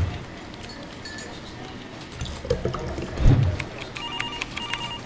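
Coffee poured from a French press into a mug, then a dull thump about three seconds in, followed by fast computer-keyboard typing. Near the end a telephone rings in two short bursts.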